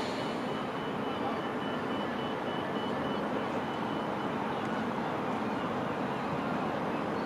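Steady urban background noise of distant road traffic and railway, with a faint high whine in the first few seconds.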